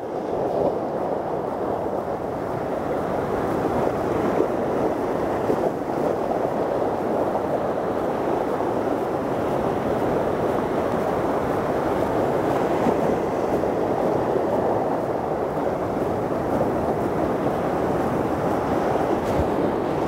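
Sea surf washing and breaking over the rocks of a reef-lined shore, a steady rush of water, with wind on the microphone.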